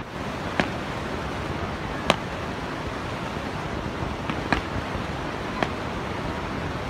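Aerial fireworks shells bursting at a distance: about five sharp, separate bangs spread a second or so apart, over a steady rushing noise.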